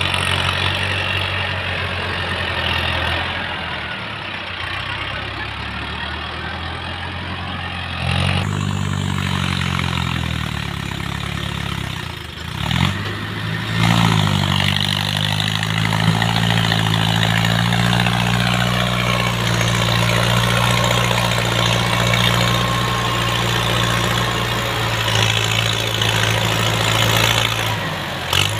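Mahindra Arjun 605 tractor's four-cylinder diesel engine running under load as it hauls a full trailer of earth. The engine note changes about eight seconds in and dips briefly around twelve seconds, then runs steady and louder as the tractor comes up close.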